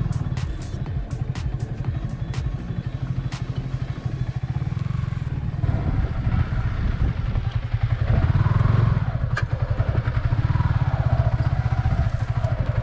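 Single-cylinder motorcycle engine running at low speed over a rough off-road track, with sharp clicks and knocks in the first few seconds. The engine grows louder about eight seconds in.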